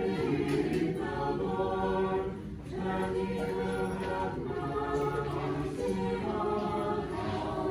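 Church choir singing Orthodox liturgical chant a cappella, in sustained chords with two short breaks between phrases.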